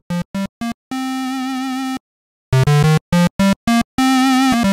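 Roland System-8's Juno-106 model on an initialized patch playing a quick run of short, bright synth notes and one held note. After a brief gap about two seconds in, the Roland Juno-X's Juno-106 model plays the same init-patch phrase, noticeably louder.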